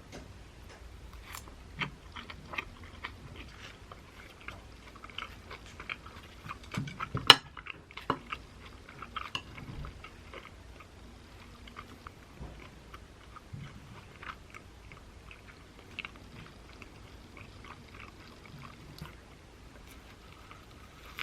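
A person chewing and biting food, with irregular small crunches and clicks and one sharp click about seven seconds in.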